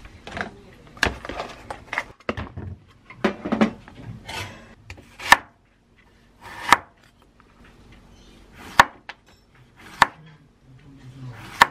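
Chef's knife slicing an onion and then a Korean zucchini on a wooden cutting board. Each cut ends in a sharp knock of the blade on the wood. The knocks come close together at first, then singly about a second apart.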